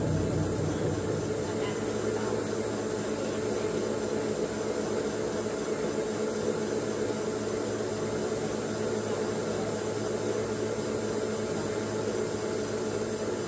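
RMT TGB14 CNC pipe threading machine running a cut on a flanged ductile iron pipe end, with the tool head turning against the stationary pipe. It gives a steady mechanical hum with a constant whine and no pauses.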